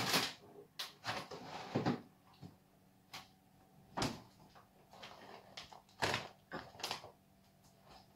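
Scattered knocks, clatters and rustles of someone rummaging in a fridge: items moved on the shelves, the fridge door closing and a plastic cheese packet handled. A faint steady hum runs underneath.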